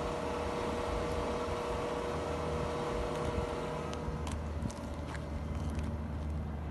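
Steady mechanical hum over a low rumble, with a few light clicks between about four and six seconds in.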